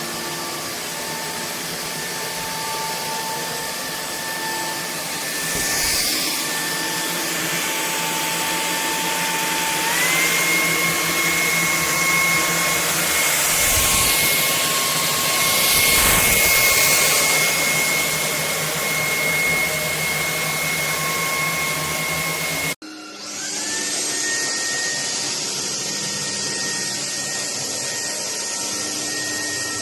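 Bulelink cordless stick vacuum running with a steady motor whine and rushing air. About ten seconds in, the whine steps up to a higher pitch. Near the end it cuts off abruptly and the motor spins back up to speed.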